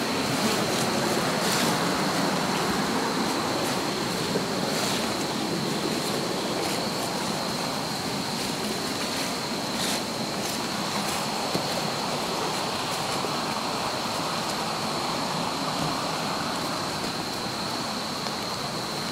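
Steady rushing noise with a constant thin high whine above it, easing slightly toward the end, and a few faint ticks.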